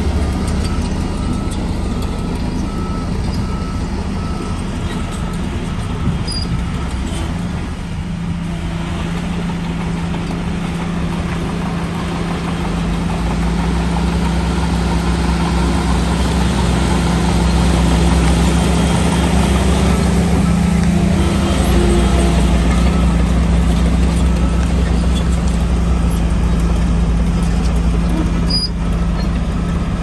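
Shantui DH17 bulldozer's diesel engine running steadily under load, growing louder for several seconds around the middle as it works harder. A reversing alarm beeps at an even pace during roughly the first third.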